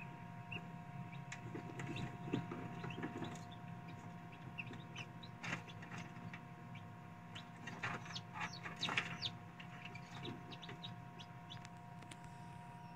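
Newly hatching chicks peeping from inside pipped eggs: a scatter of short, high peeps, busiest in the middle, over the steady hum of the egg incubator.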